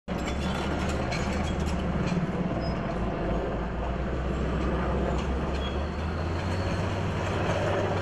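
Heavy diesel engine of an earthmoving machine cutting a firebreak, running steadily with a low drone; its pitch rises slightly about six seconds in.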